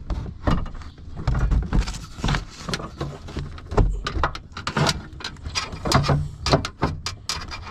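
Irregular metallic clicks, clanks and knocks from the lower door latch of a 2000 Chevrolet Silverado 2500 being pulled and worked by hand inside the door, with some dull thumps against the door panel. The latch is rust-seized and will not release.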